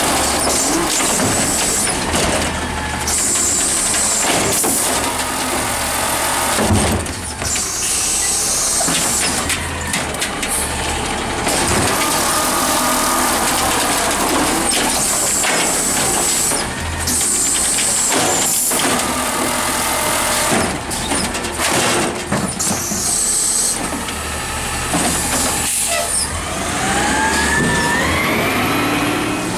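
Natural-gas automated side-loader garbage truck at work: the engine runs while the hydraulic arm lifts and empties carts, with knocks from the carts and several short air hisses. Over the last few seconds the engine note rises as the truck pulls away.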